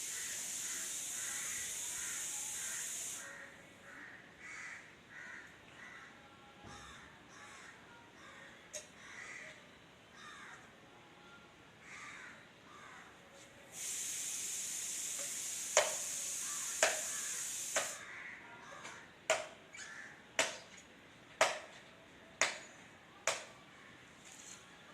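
Crows cawing repeatedly. A steady hiss runs at the start and again partway through, and near the end come sharp short sounds about once a second.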